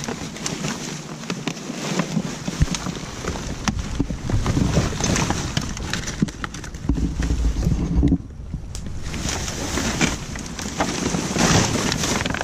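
Plastic trash bags and cardboard packaging rustling and crinkling as they are rummaged through, with many small clicks and a low rumble underneath; it drops off briefly about eight seconds in.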